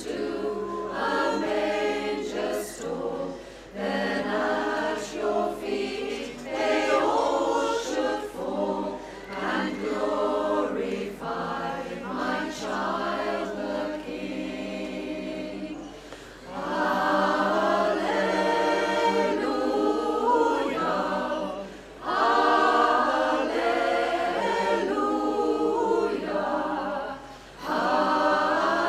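Women's choir singing a cappella in harmony, several sustained phrases with brief breaks for breath between them.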